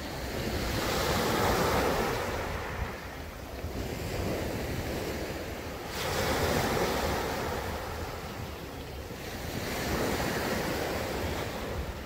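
Sea waves breaking on the shore, the surf swelling and fading four times, with the rush of one wave coming in sharply about halfway through. A steady low wind rumble on the microphone runs underneath.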